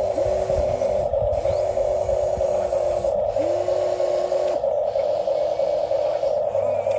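Small electric motors of a radio-controlled model excavator whining: a steady hum throughout, with a second, lower whine that starts and stops every second or so as separate functions are driven.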